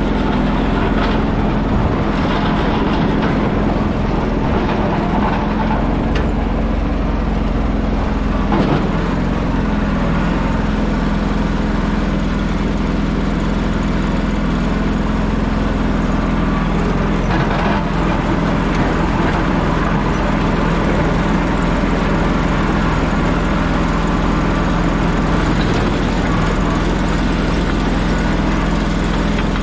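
An engine running steadily at an even speed, with a single brief knock about eight and a half seconds in.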